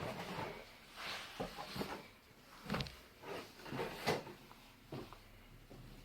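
Scattered soft knocks and rustling from a person moving through bodyweight floor exercises.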